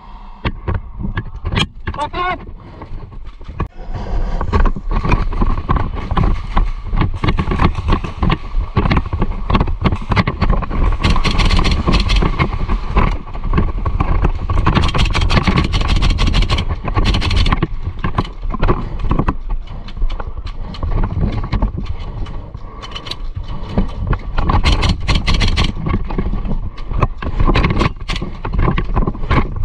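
Heavy breathing through a gas mask, loud and rough, mixed with many quick clicks and knocks.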